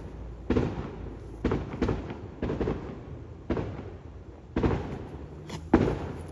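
A string of sharp bangs at irregular intervals, roughly one or two a second, each trailing off in an echo: firecrackers going off, which the owner first could not tell from gunfire and then judges were probably firecrackers.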